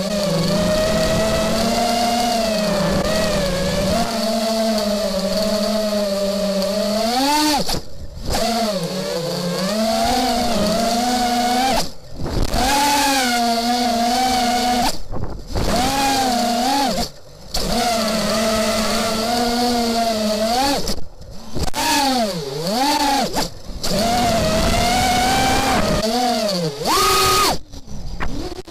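Crusader GT2 quadcopter's electric motors and propellers buzzing, heard from its onboard camera, the pitch swinging up and down with the throttle. The sound cuts out briefly several times as the throttle is chopped for flips.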